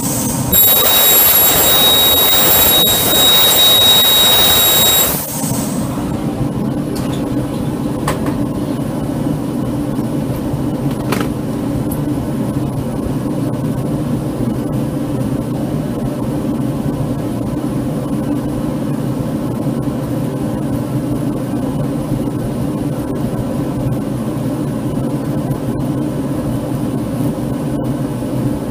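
Kern laser cutter engraving checkering into a hard maple grip: a loud hiss with steady high whistles that stops abruptly about five seconds in. After that, a steady low machine hum with a few light clicks.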